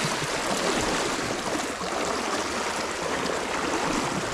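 Steady rushing of a shallow river current flowing around the wading angler, an even wash of water noise.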